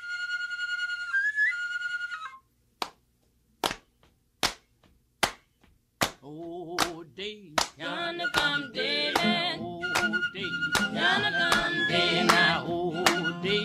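A short high held note that bends upward, then hand clapping in a steady beat, a little more than one clap a second. About halfway through, a group of voices starts singing a spiritual over the claps.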